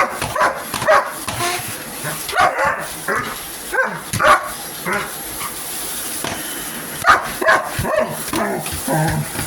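Dog barking at a vacuum cleaner in a run of short, separate barks with yips and whines between them.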